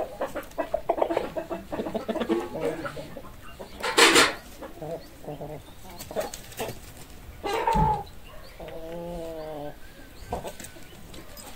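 Chickens clucking in quick repeated notes, with further calls later on and one short, loud, hissy burst about four seconds in.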